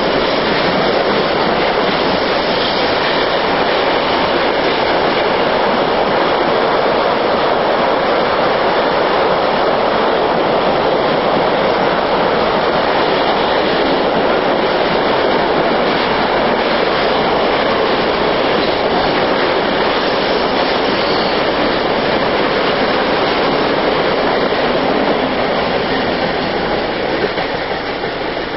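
Long electrically hauled freight train rolling past: a steady, loud noise of its wagons' wheels on the rails. It fades near the end as the last wagon goes by.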